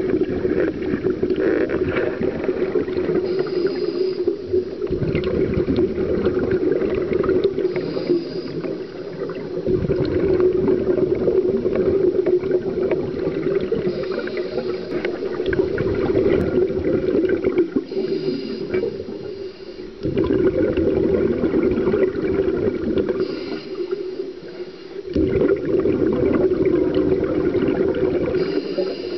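Scuba regulator breathing heard underwater through a camera housing: a short hissing inhale about every five seconds, each followed by a longer bubbling, gurgling exhale, over a steady hum.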